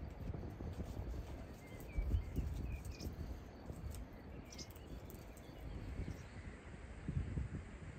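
Countryside ambience with a low rumble, a few faint bird chirps about two to three seconds in, and light scattered clicks of a small knife peeling an eggplant.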